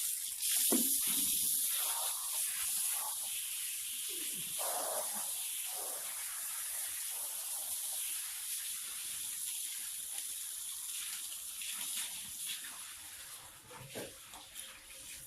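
Water running and splashing as the cowshed is washed clean, a steady hiss that fades near the end.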